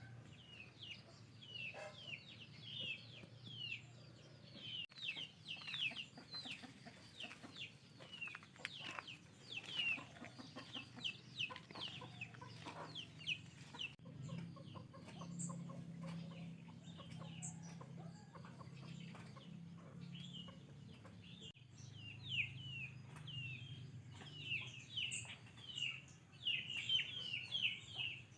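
Birds chirping rapidly: many short, high, falling notes, busiest near the end, over a low steady hum.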